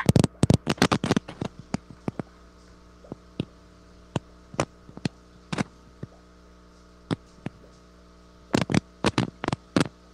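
Handling noise from a camera being moved around: irregular sharp clicks and knocks, bunched in the first second or so and again near the end, over a steady hum.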